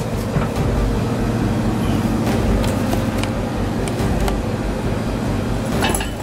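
Ball-bearing swivel casters with polyurethane wheels, on a steel engine stand, rolling across a rough concrete floor: a steady low rumble with a few light clicks.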